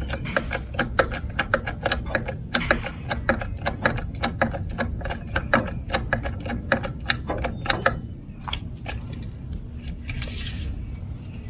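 Ratchet on a portable sawmill's hand-cranked height adjustment clicking rapidly as the saw head is wound two inches, about five clicks a second; the clicking thins to a few scattered clicks about eight seconds in.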